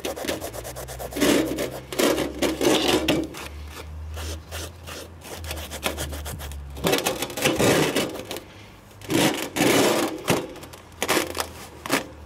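Hands scraping and crumbling kinetic sand in a plastic tray, in irregular gritty bursts. The sand by the casting has turned hard and crunchy from the molten aluminum.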